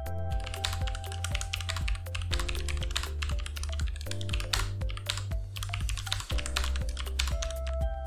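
Typing on a Tecware Phantom L low-profile mechanical keyboard with Outemu red linear switches: a rapid, irregular run of keystrokes, with background music underneath.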